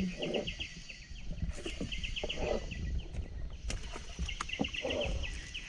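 Rapid high chirps in short bursts of several notes, repeating every second or so, from calling wildlife at the river. A few sharp knocks come in between.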